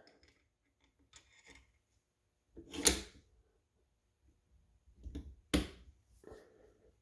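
Separate metallic clicks and clacks of a rifle bolt being worked with a no-go headspace gauge in the chamber. The loudest come near 3 seconds and about 5.5 seconds, as the bolt is pushed closed and meets a hard stop.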